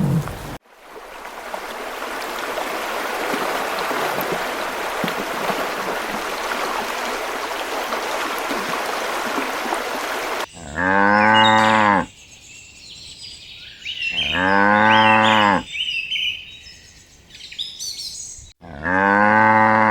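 Steady noise without a clear pitch for about ten seconds, then a cow mooing three times, each moo about a second and a half long, rising and falling in pitch.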